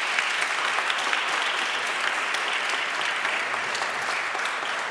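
A roomful of people applauding: steady, dense clapping that eases off slightly near the end.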